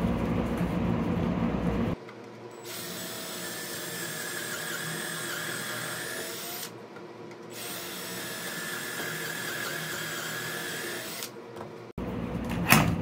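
Cordless drill with a stepped pocket-hole bit boring into a 2x4 held in a pocket-hole jig: two steady runs of about four seconds each with a short pause between, one for each of two pocket holes. A sharp knock near the end.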